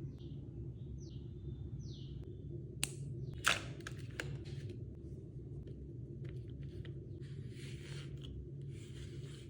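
Objects being handled by hand, with sharp clicks about three seconds in and bursts of rustling near the end, over a steady low hum.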